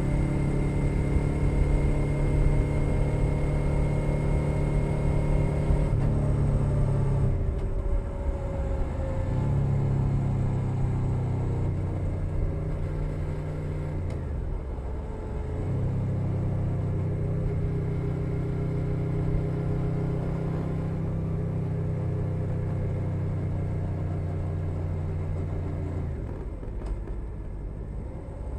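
A 2021 Suzuki SV 650's 645 cc V-twin, fitted with a Leo Vince Nero aftermarket exhaust, running under way at a steady pace. Three times its note briefly drops and then picks back up.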